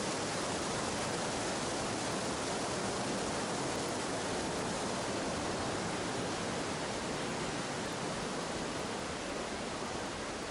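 Steady rushing of a gorge's mountain stream and waterfalls, easing slightly near the end.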